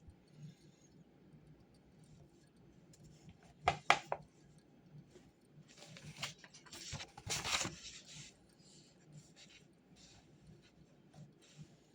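Small handling noises at a study desk: two or three sharp taps about four seconds in, then about two seconds of rustling a little later.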